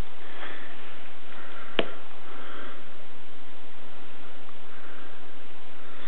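A person sniffing through the nose a few times over steady hiss, with one sharp click about two seconds in as the Microtech HALO V out-the-front knife is handled.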